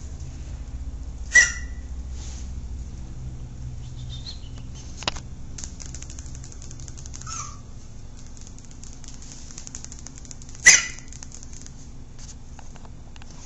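A small puppy giving two short, high yaps, one near the start and one about nine seconds later, with a quieter falling squeak and a single sharp click between them.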